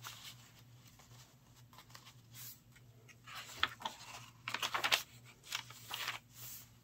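Paper pages and card of a handmade junk journal being turned and handled: several short, soft rustles and swishes, the loudest between about two and a half and five seconds in.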